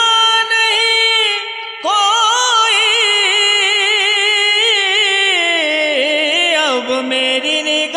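Male voice singing an Urdu naat: a long melismatic line held and ornamented, wavering up and down and sliding lower near the end.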